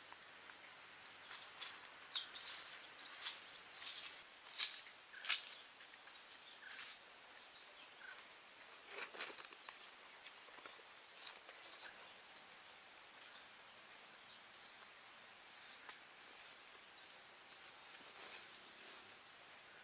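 Faint outdoor ambience: a steady hiss, a run of sharp crackling snaps in the first few seconds and again around nine seconds in, and a short, high, falling bird trill about twelve seconds in.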